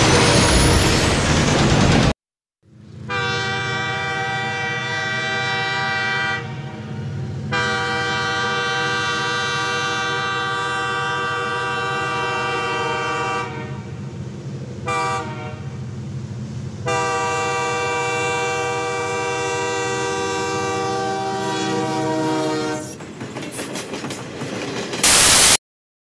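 Locomotive air horn sounding a chord of several tones over the low rumble of the train, in the grade-crossing pattern: a long blast, a second long blast, a short one and a final long one that fades away. Before it, about two seconds of loud film soundtrack of a train is cut off into a moment of silence.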